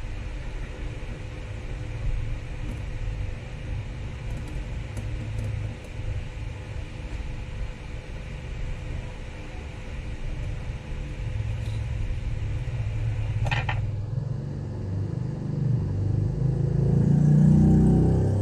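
A steady low rumble that swells louder near the end, with a short sharp click-like sound about three-quarters of the way through.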